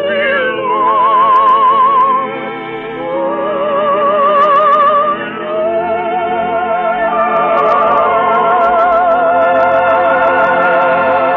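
Operatic singing with a strong vibrato and orchestral accompaniment. Long held notes climb to the song's sustained final note in the second half.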